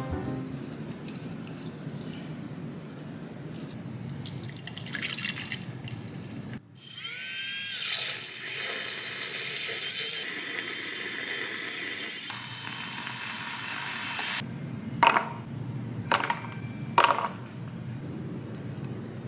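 Bamboo matcha whisk swishing through tea in a ceramic bowl. Then a handheld electric milk frother whirs up to speed with a short rising whine and froths milk in a glass for about seven seconds before cutting off, followed by a few sharp clinks of ice cubes dropping into the glass.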